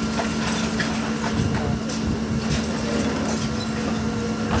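Heavy machine's engine running with a steady hum, with irregular knocks and clatters over it, typical of demolition work.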